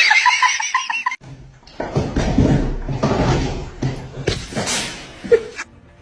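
Laughter: a high, wavering laugh for the first second, then after a brief break a longer, breathier stretch of laughing that fades toward the end.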